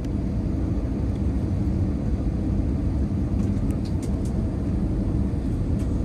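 Airliner jet engines and the rolling aircraft, heard from inside the passenger cabin as the plane moves along the runway: a loud, steady low rumble.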